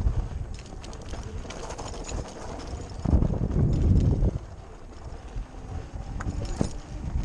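Zero FX electric dirt bike riding over a rocky gravel trail: tyres crunching and knocking over loose stones, with wind rumbling on the microphone. The wind rush grows louder for about a second from three seconds in, and several sharp knocks come near the end.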